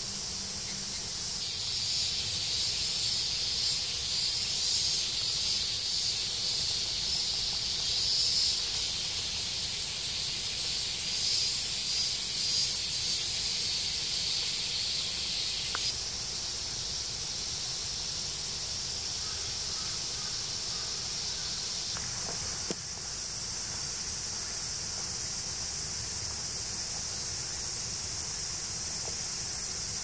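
A summer chorus of cicadas buzzing at a high pitch. It pulses and is loudest through the first half, then turns quieter and steadier about halfway through and shifts again near the end.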